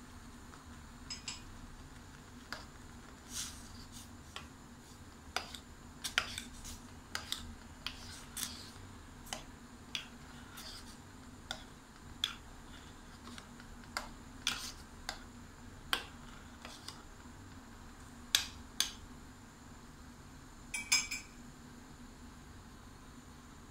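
Metal spoon stirring soup in a stainless steel saucepan, clinking sharply against the pan in irregular taps about once a second, over a steady low hum.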